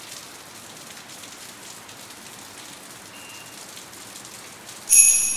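Steady rain falling. About five seconds in, a bright chime strikes and rings out with several high tones, slowly fading.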